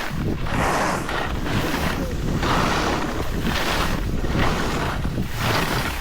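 Edges scraping across hard, icy snow through a series of turns, a rushing swell about once a second, with wind buffeting the microphone underneath.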